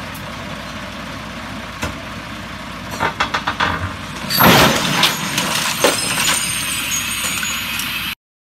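Steady vehicle engine noise, then a run of knocks about three seconds in and a loud crash about four and a half seconds in, followed by clattering and rattling; the sound cuts off suddenly near the end.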